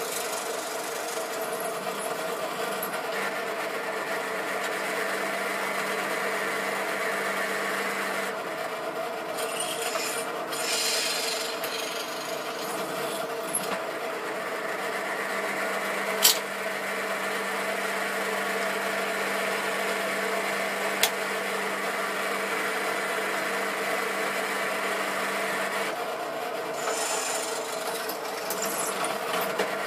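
Benchtop drill press running, its 9/64-inch bit drilling a hole: a steady motor hum with the grinding of the bit cutting, and two sharp clicks in the middle.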